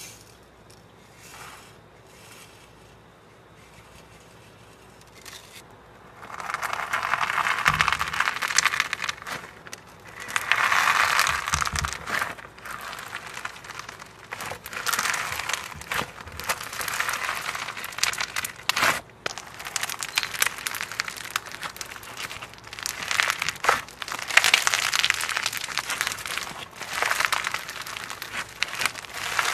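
Crunchy slime being squeezed and pressed by hand, giving repeated bursts of crackling with sharp clicks, beginning about six seconds in after a quieter start.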